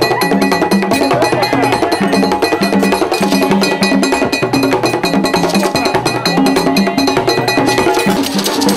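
Haitian Vodou ceremonial drumming: hand drums beaten in a fast, dense, repeating rhythm with other percussion clicking over it. The sound changes abruptly near the end.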